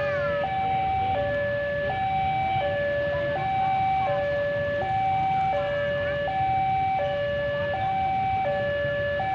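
Railway level-crossing warning alarm: an electronic two-tone signal alternating high and low about every 0.7 s, over a low rumble.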